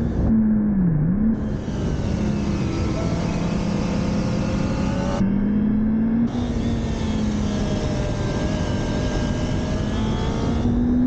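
Motorcycle engine heard from on board while riding, over heavy wind rush. The engine note dips briefly about a second in and climbs slightly near the end.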